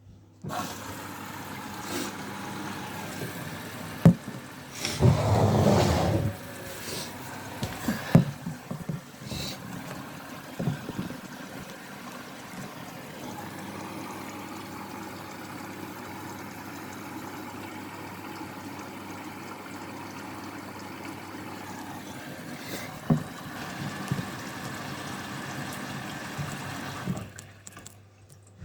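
Hotpoint Active Care washing machine taking in water at the start of its Rapid 30 cycle: a steady rush of water through the inlet, with a few knocks and a louder surge about five seconds in. Near the end the flow cuts off.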